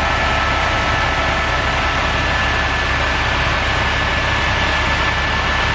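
Helicopter in flight, heard from inside its cabin: steady engine and rotor noise with a thin high whine held throughout.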